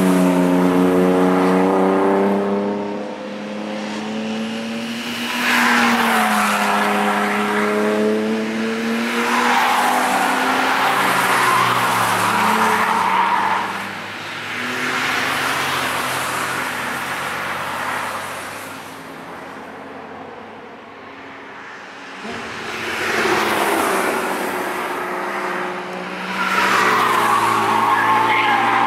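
A string of cars driven fast through a track corner one after another, about five passes, each engine note rising and then dropping in pitch as it goes by. Some come through with their tyres squealing.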